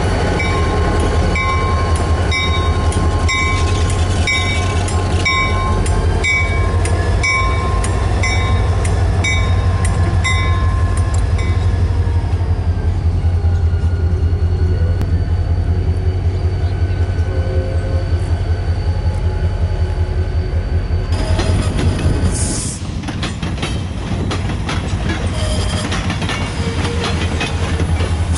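Southern SD40 3170 and a second diesel locomotive, 2601, running past at close range with a steady low engine rumble. A bell rings about one and a half times a second for the first twelve seconds, and the upper sound fades as the locomotives pull away. About 22 seconds in, the sound changes to a quieter train rolling on the track, with clicking wheels.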